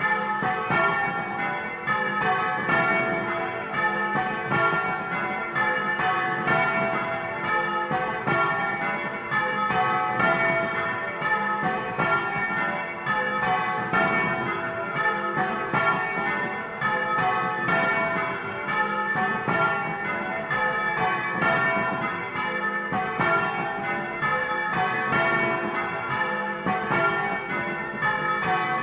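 Several bronze church bells swinging in their frame and ringing a continuous festive peal, heard close up inside the belfry, with several strikes a second overlapping into a dense ringing. It is the Easter peal announcing the Resurrection.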